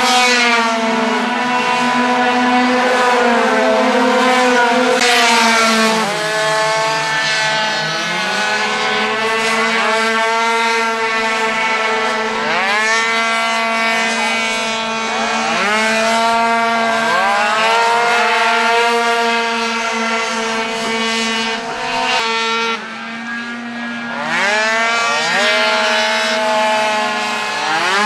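Several small racing scooter engines running at high revs. Their pitch repeatedly drops off and climbs again as they slow for corners and accelerate out, with more than one engine heard at once. A steady low hum runs underneath.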